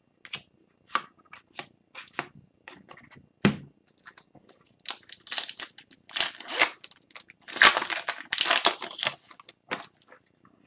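Hockey card pack wrapper being torn open and crinkled by hand, with cards handled. Light rustles and taps at first, then a run of tearing and crinkling in the second half, the loudest part.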